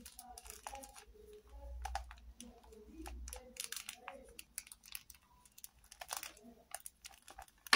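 Scattered light clicks and rustling of small objects being handled on a table, with a low rumble of handling for a second or two near the middle and a few faint murmured words.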